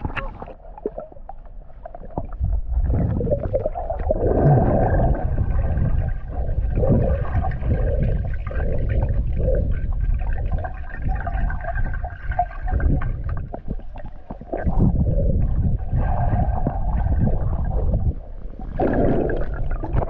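Action camera held under water in a river: a low muffled rumble of moving water with gurgling and bubbling swells. A louder wash of water comes near the end as the camera nears the surface.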